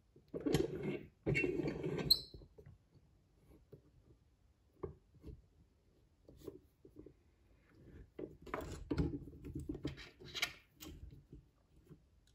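Handling noise as a hand gripper is fitted into a steel-rod load-testing rig: rubbing and scattered light clicks and knocks, with a short metallic clink about two seconds in and a denser patch of rattling and rubbing from about eight seconds in.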